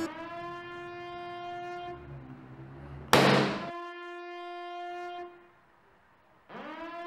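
Balloon noisemaker, a balloon with a reed whistle at its neck, sounding a steady horn-like drone as the air escapes, in three blasts. A short loud rush of noise comes about three seconds in, and the last blast rises in pitch as it starts near the end.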